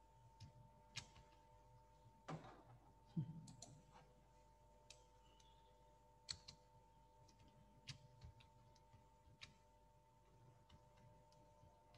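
Near silence: room tone with a faint steady hum and scattered faint clicks. A brief, louder rustle and knock come about two to three seconds in.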